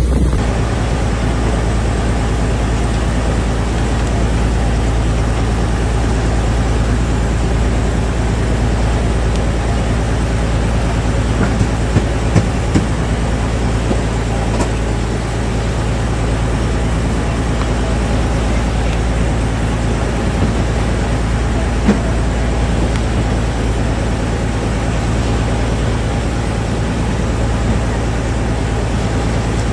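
Fishing boat's engine running steadily at a constant speed, a low droning hum, with a few light clicks about halfway through.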